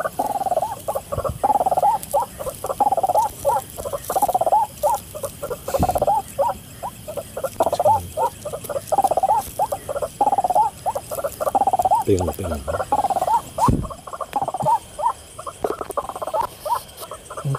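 White-breasted waterhen calling: a rapid series of short, croaking 'kwak' notes, two to three a second, with a few brief breaks.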